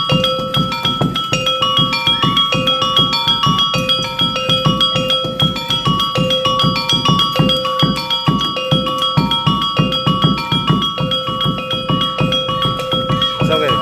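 Topeng monyet street-show music: a short melody on tuned metal percussion repeating over and over above a quick, steady drumbeat.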